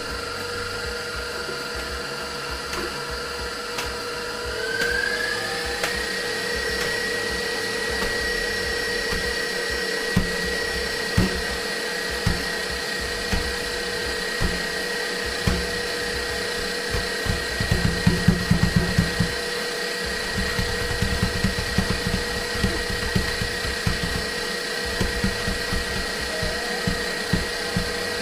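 Electric mixer whipping cream and powdered sugar toward stiff peaks: a steady motor whine that steps up in pitch about five seconds in, then runs level. Irregular dull knocks sound underneath, thickest about two-thirds of the way through.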